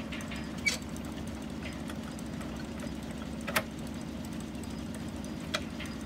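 1936 Buick straight-eight engine powering the sawmill, running steadily. Sharp metal clanks come about a second in, around three and a half seconds in and near the end as levers on the carriage headblock are worked.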